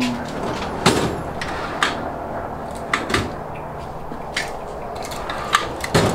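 Scattered sharp metal clicks and clanks, about one a second, from hand tools being handled and a steel tool chest drawer.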